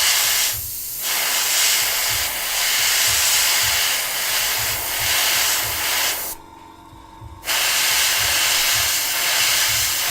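Paint spraying in long hissing bursts of metallic paint, with a short break about half a second in and a pause of about a second past the six-second mark before the spray starts again.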